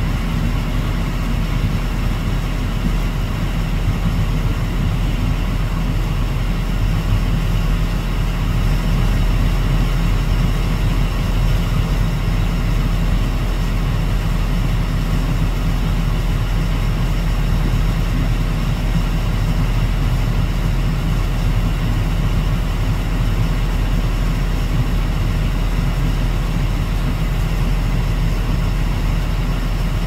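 Steady low rumble of an idling engine, holding level with no change in pitch.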